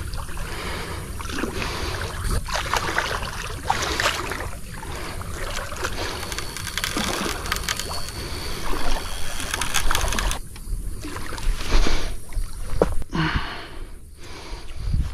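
Water splashing and sloshing around a hooked wels catfish being drawn in at the edge of a flooded river, with scattered clicks and knocks. Near the end come rustling and steps at the water's edge.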